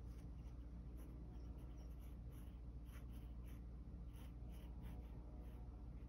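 Black fine-tip marker pen scratching on paper in a run of short, quick strokes, over a faint steady low hum.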